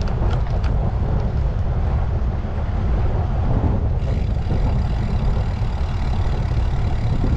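Steady low rumble of road traffic and wind on the microphone while riding a bicycle along a street, with a few faint ticks in the first second.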